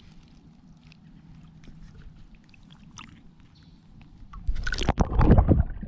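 Water sloshing and splashing around a kayak: faint scattered drips and ticks at first, then a louder splashing and sloshing for the last second and a half or so.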